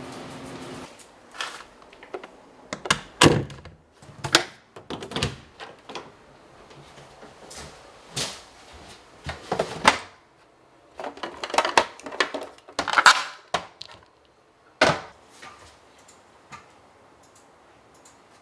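A steady hum stops about a second in, then a string of irregular knocks, clunks and clatters follows, like household objects being handled and set down in a small room.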